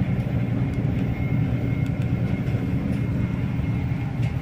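A cargo ship's engine running with a steady low hum, heard on board while the ship manoeuvres out of harbour.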